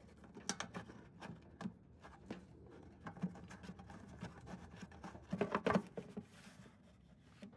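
Faint clicks and taps of fingers turning out a small screw holding a snowblower's belt cover, with a louder cluster of clicks about five and a half seconds in.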